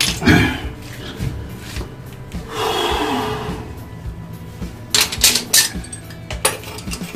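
Metal clinks and knocks from a wrench and metal pipe fittings being handled during plumbing work under a sink, with a cluster of sharp knocks about five seconds in. A short hiss comes around the middle, and faint music plays behind.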